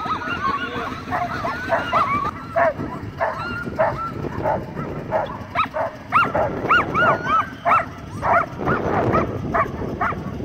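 Many sled dogs barking and yipping over one another, short rising-and-falling calls several a second with no let-up: the excited clamour of a dog lot with teams being hooked up to run.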